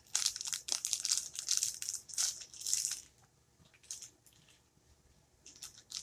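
Plastic packaging crinkling and crumpling as it is handled, in quick crackly strokes for about three seconds, then a few light clicks and rustles.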